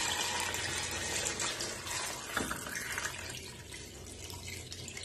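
Water pouring from a glass measuring jug into a stainless steel pot of chopped vegetables, a steady splashing that grows quieter after about three seconds. A single short knock comes about halfway through.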